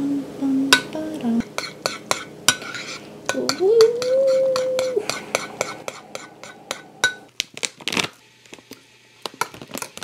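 Metal spoon stirring in a ceramic bowl: a quick, uneven run of clinks against the bowl's side, some ringing briefly. A voice hums a few notes near the start and again around the middle, and the clinking thins out near the end.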